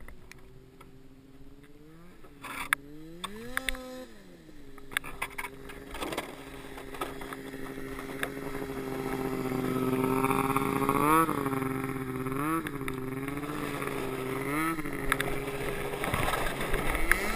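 Snowmobile engine towing a tube rider across snow-covered ice: a steady engine note that swells up and back down once about two seconds in, holds and grows louder, then gives four quick revs near the end. Scraping and hiss of the tube sliding over the snow run underneath.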